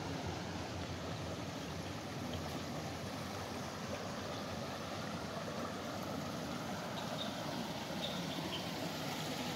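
Water running steadily along a narrow stone-lined channel, an even rushing sound.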